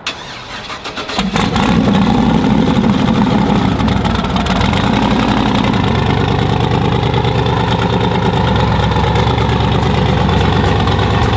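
Twin-turbo Chevrolet Silverado's engine cranking for about a second, then catching and settling into a loud, steady idle.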